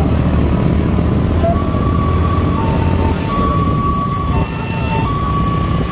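Two-tone hi-lo siren alternating between a higher and a lower note, each held about a second, starting about a second and a half in, over the steady low rumble of a moving motor vehicle.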